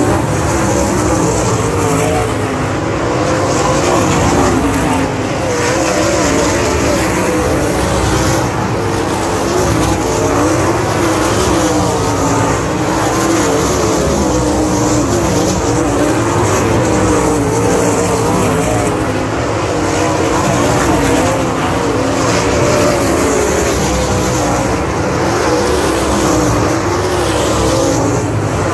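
Winged sprint cars racing on a dirt oval: several engines running hard at once, their pitch wavering up and down as the pack laps the track.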